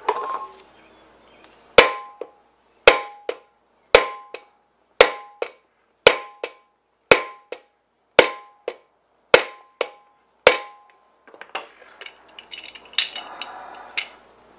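Hammer striking a steel bearing-race driver to drive a pinion bearing race into its bore in an aluminium Ford 8.8 differential housing. Nine blows about one a second, each ringing briefly and followed by a lighter rebound tap. Lighter metal clinks near the end as the driver is handled.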